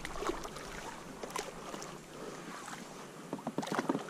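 Small splashes and water sloshing as a hooked bass thrashes at the surface beside a kayak, with a quick flurry of splashes near the end.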